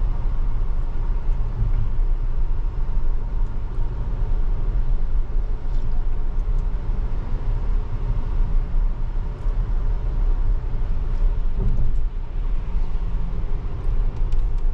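Steady road noise inside a Tesla's cabin on a wet road: a low rumble with a hiss of tyres on wet pavement, and no engine sound.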